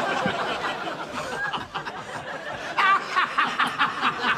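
Laughter, swelling into a louder burst of rapid, repeated laughs about three seconds in.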